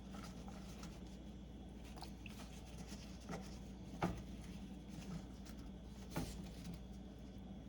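Knife slicing ginger thin on a cutting board: a handful of faint, scattered taps over a low steady hum.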